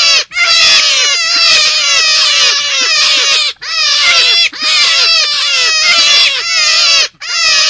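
Dense chorus of loud, overlapping high calls, each note falling quickly in pitch, played as a looped lure recording that breaks off briefly about every three and a half seconds.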